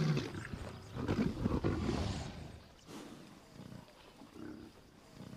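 Low growls and grunts from large wild animals, loud over the first two seconds and then dying away to faint, scattered sounds.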